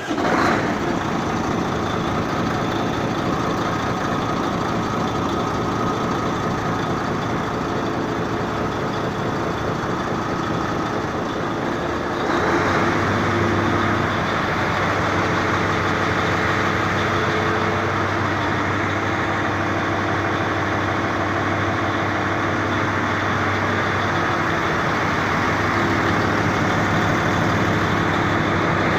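Mercedes Actros truck's diesel engine running steadily at idle, getting a little louder and brighter about twelve seconds in.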